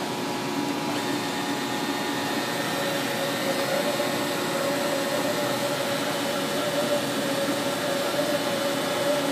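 DeWalt portable band saw running steadily while its blade cuts through a workpiece held in a vise: a continuous motor whine at a steady pitch, growing a little stronger about three seconds in.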